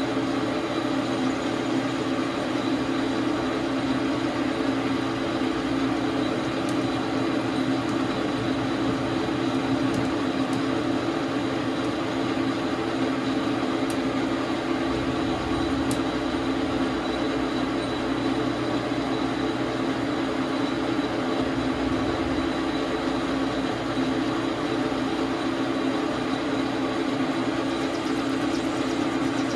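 Dar Sin 12x37 manual metal lathe running steadily, a constant machine hum with no change in speed.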